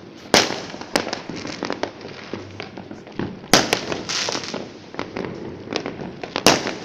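Fireworks going off continuously: steady crackling and popping with sharp, loud bangs, the loudest about half a second, three and a half seconds and six and a half seconds in.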